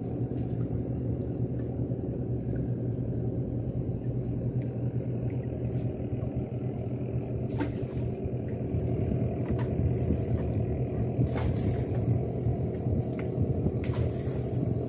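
Small boat's motor idling, a steady low hum. Four or five light clicks are heard from the second half on, as the cast net is handled.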